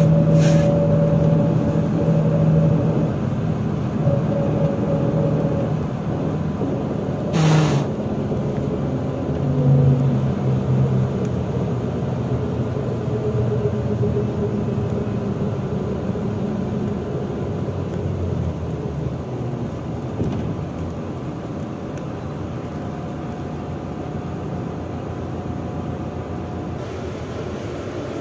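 Interior sound of a MAZ-103 city bus driving along: the engine and drivetrain hum steadily, the pitch rising and falling with speed. A brief hiss cuts in about seven seconds in.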